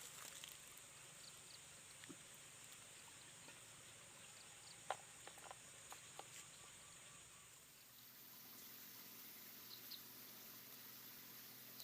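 Near silence with faint steady insect buzzing and a few soft clicks about five seconds in. The insect sound gives way to a different faint, steady hum about two-thirds of the way through.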